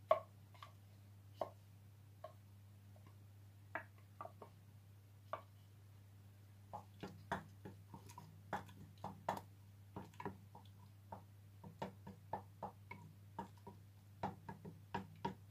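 Wooden spoon knocking and scraping against a stainless steel pot as a thick cooked pepper and tomato mixture is stirred and mashed. A few scattered taps at first, then several knocks a second from about halfway through.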